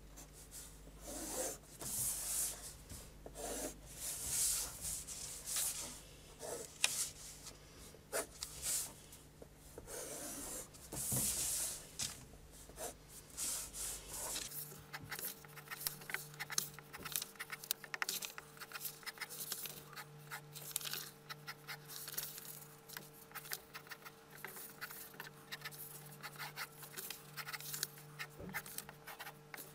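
Pencil scratching on paper as lines and arcs are sketched freehand: longer sweeping strokes at first, then, about halfway through, many short quick strokes in rapid succession.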